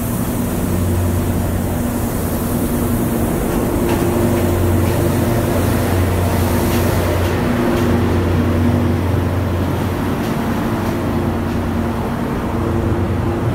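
A GE U15C diesel-electric locomotive's engine idling: a steady low drone with a few humming tones above it that fade out and come back.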